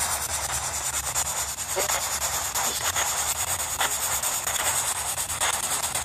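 Steady hiss of static, with a scatter of faint crackles through it.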